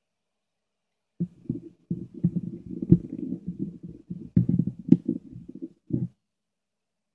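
Muffled rubbing and knocking of a plastic multimeter case handled in the hands, with two sharper clicks about three and five seconds in. It starts about a second in and stops about six seconds in.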